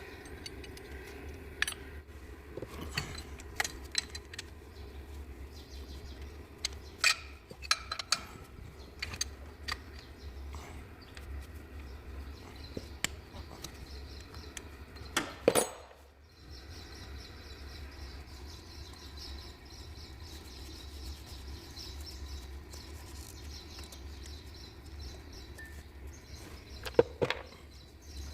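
Metal hand tools and engine parts clinking and knocking during work on a timing belt, in scattered single strikes, with a louder clank about halfway through and another near the end. A faint low hum runs underneath.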